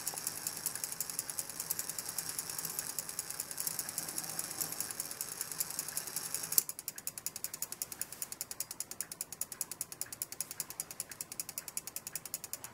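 Brass clock movement of an antique Ansonia eight-day strike clock, its strike train running with a rapid, even ratcheting clatter that stops abruptly with a sharp click about six and a half seconds in, as the train locks. Quieter, regular ticking of the movement continues after.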